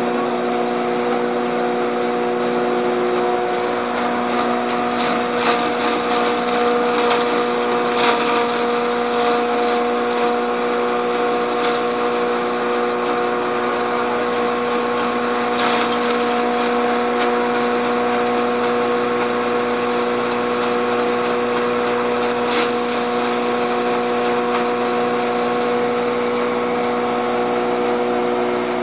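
Biomass straw hammer mill running steadily on its electric motor: a steady hum of several pitches over a rushing noise. A few sharp ticks come and go.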